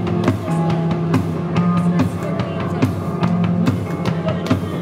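Live rock band playing an instrumental passage: electric guitar over a drum kit keeping a steady beat, with no vocals.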